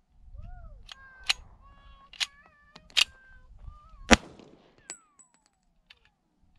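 Handgun shots: a few sharp cracks about a second apart, then the loudest shot about four seconds in. Thin chirping tones sound between the first cracks.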